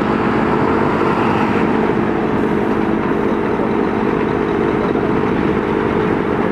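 Heavy road-works machinery with its engine running steadily, a constant low rumble.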